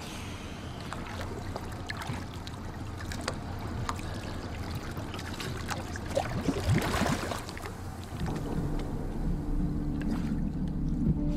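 Water sloshing and splashing around a small boat, with scattered small knocks and a louder bubbling splash about seven seconds in. A low steady hum comes in at about eight seconds.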